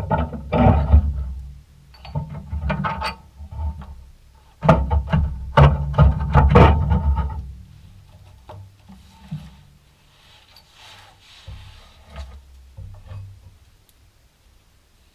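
Hand tools working seized suspension bolts on a VW bus's rear torsion arm: three bursts of rapid metallic clicking and clanking, the last and longest about three seconds. Fainter knocks and scraping follow.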